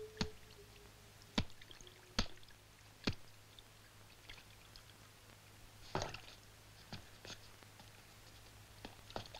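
A few sharp clicks and knocks at irregular intervals, over a faint steady hum.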